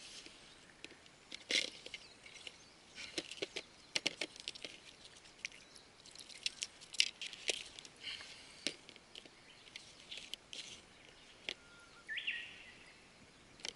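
Irregular small splashes, drips and sharp clicks from handling a freshly caught largemouth bass and gear at the water's surface, with a bird's short rising chirp near the end.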